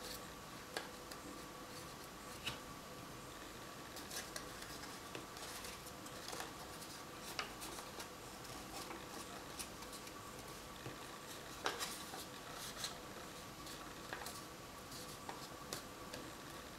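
Faint rustling and crinkling of paper as hands fold and press a freshly glued paper petal into a cone, with scattered small ticks and clicks; the sharpest comes about twelve seconds in. A faint steady hum sits underneath.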